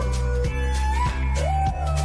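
Background music: a melody with gliding notes over held bass notes, with a steady beat of about two strokes a second.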